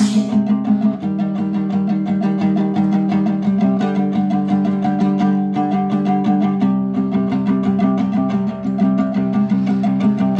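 Music: a guitar-like plucked string instrument strummed in a fast, even rhythm over sustained low notes, which change about a second in, near the middle and again later.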